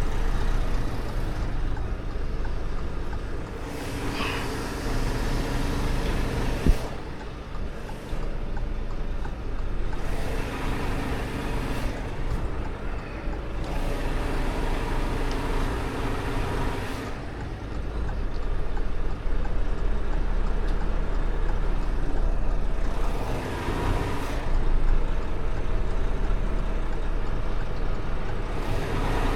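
Truck engine running steadily at idle, with a single sharp knock about seven seconds in.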